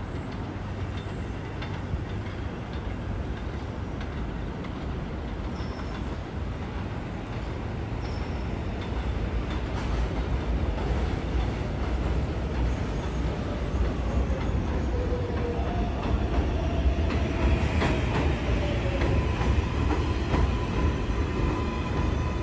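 A New York City subway train approaching and pulling into an elevated station. A steady rail rumble grows louder from about halfway through, an electric motor whine falls in pitch as the train brakes, and steady high tones come in near the end.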